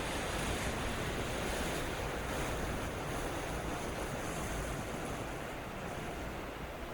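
A person's long, slow deep breath taken close to a binaural microphone: a steady airy rush of air that fades gradually toward the end.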